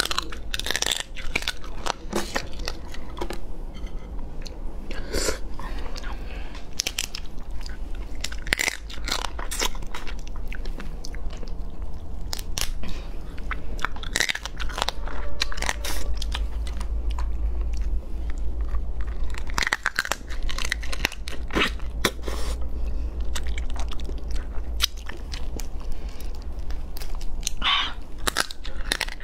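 Close-miked biting, crunching and chewing on a soy-marinated raw crab's legs and shell, in irregular cracks and crackles, over a steady low hum.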